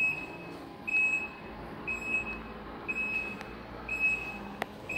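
Infiniti FX35's warning chime beeping steadily, a short high tone about once a second, with a single sharp click near the end.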